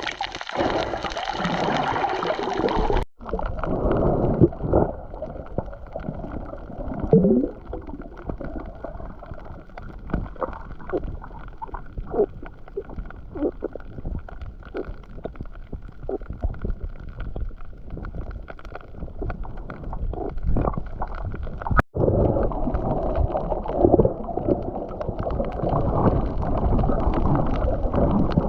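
Muffled water gurgling and sloshing, dotted with short clicks and knocks. The sound changes abruptly about three seconds in and again a little before the end.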